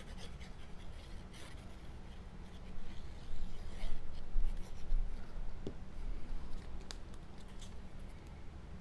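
Paper handling: cardstock pieces rubbing and scraping, with small ticks and taps, as paper layers are glued and pressed together. Busiest a few seconds in.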